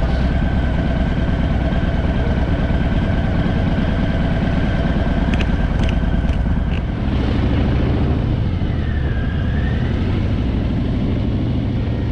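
Harley-Davidson Fat Boy's V-twin engine running steadily while riding, with a few short clicks about halfway through.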